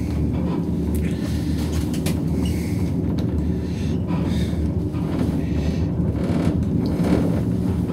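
Steady low rumble inside a DMC twin-rope gondola cabin as it travels along its two haul ropes, with a few faint ticks.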